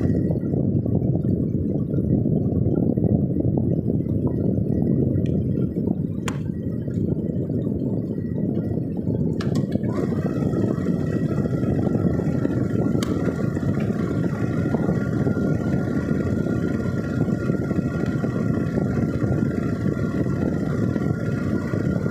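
Steady low rumble of wind and road noise from a vehicle on the move. A few faint clicks come about six, nine and thirteen seconds in, and a faint steady whine joins about ten seconds in.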